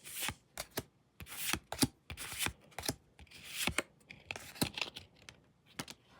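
Pokémon trading cards being handled and slid one over another, making irregular short swishes and sharp clicks.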